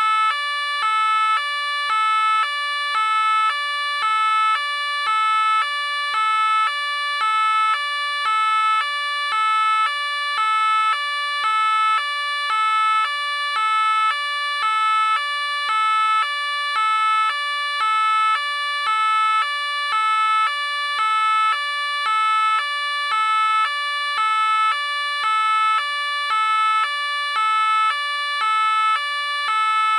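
French police car two-tone siren (the "pin-pon"), alternating evenly between a higher and a lower note, each held about half a second, repeating without a break.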